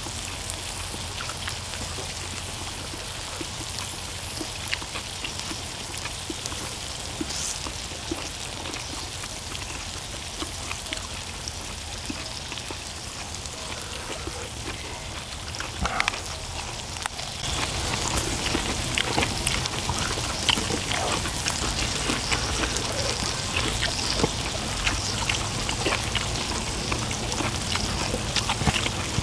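Pork intestines sizzling on a hot cast-iron pot-lid griddle over charcoal: a steady fine crackle with many small pops that grows louder and busier about two-thirds of the way through.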